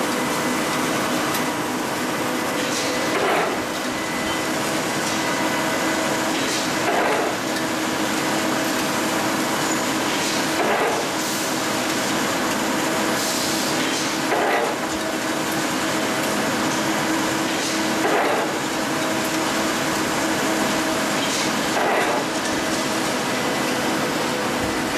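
A cold-rolled ribbed steel bar production line running: a steady mechanical din with several steady hums, and a sharp clank about every three and a half seconds.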